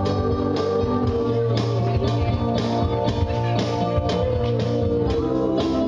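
Music with guitar over a steady beat of about two strokes a second, with a wavering melody line above sustained chords.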